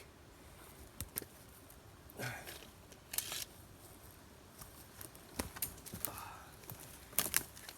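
Close handling noise: scattered sharp clicks and short bursts of rustling, with a cluster of clicks near the end.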